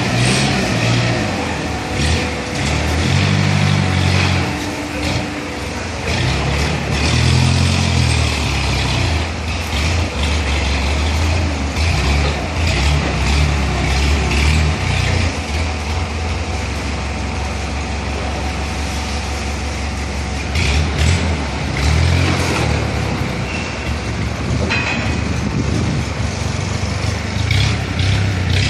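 Heavy machinery running steadily, its low drone stepping up and down in pitch as the load changes, with many irregular clicks and rattles over it.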